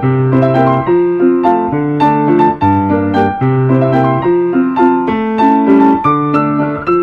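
Solo piano music: a measured piece with evenly struck notes, a melody over bass chords that change about every one and a half seconds.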